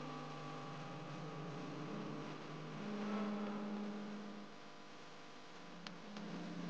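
Soft background music of held, humming tones that change pitch every second or two, with a couple of faint clicks near the end.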